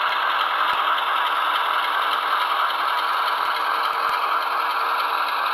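HO-scale model locomotive (Athearn Genesis ES44AC) running with its DCC sound decoder playing a GE diesel engine sound steadily through its small onboard speaker. The model's drive and wheels on the track run underneath.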